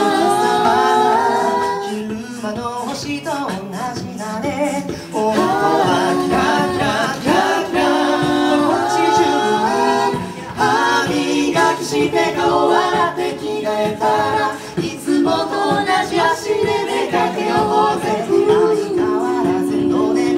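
Mixed-voice a cappella group singing in harmony: sustained chorus chords under a lead melody, with a bass vocalist and vocal percussion keeping the beat.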